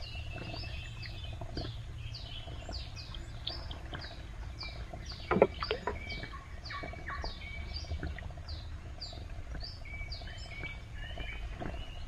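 Birds calling in a fast run of short, high, falling notes, about two a second, over a low steady rumble. A single sharp knock about five seconds in.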